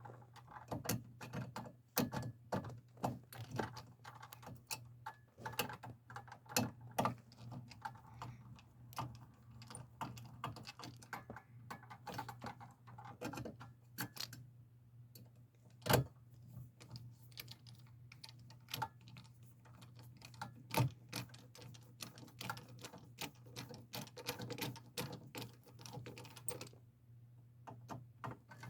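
Irregular light clicks, taps and scrapes of hand work on a GFCI receptacle as it is pushed into its electrical box and screwed in, over a steady low hum.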